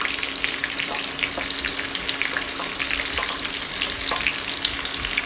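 Chopped onion, tomato and green capsicum crackling and sizzling in hot oil in a stainless steel kadai as more capsicum pieces are dropped in by hand. A steady low hum runs underneath.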